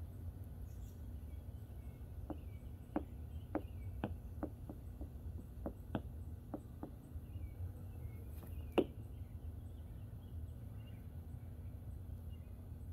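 Scattered light clicks of tap shoes being handled and shifted on a wooden tap board, with one sharper click about nine seconds in. Faint birds chirp over a steady low background rumble.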